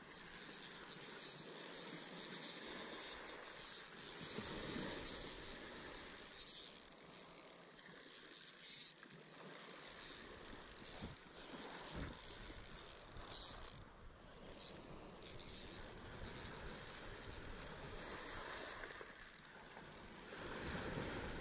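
Spinning reel being wound, a high steady whirr that stops and starts several times, with water lapping against a wooden groyne underneath.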